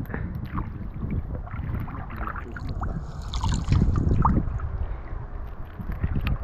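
Water sloshing and splashing with wind buffeting the microphone, swelling louder for about a second around the middle.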